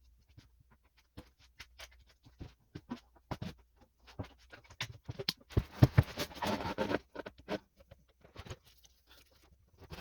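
Scattered clicks, taps and knocks of tools and parts being handled during hands-on repair work, with a denser scraping rattle and a few louder knocks about six seconds in.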